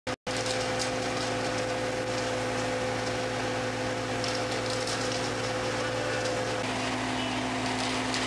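Concrete mixer truck running while it discharges concrete down its chute: a steady machine hum whose tone shifts about two-thirds of the way through.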